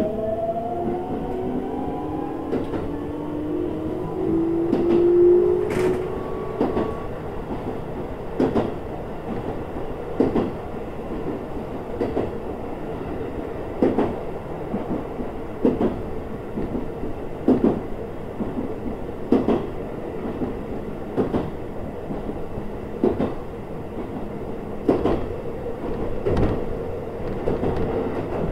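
Keikyu New 1000 series electric train heard from inside the car near the cab. The traction motor whine rises in pitch for about the first six seconds as the train accelerates. It then runs on with a steady rumble and the wheels clacking over rail joints at even intervals of just under two seconds.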